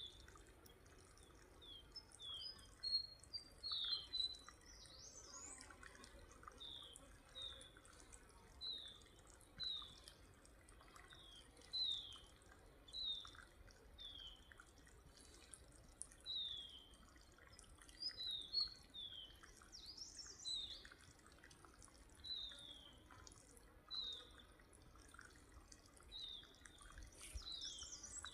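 A forest bird repeating a short, high, falling note over and over, about once a second, over a faint trickle and drip of water from a pipe.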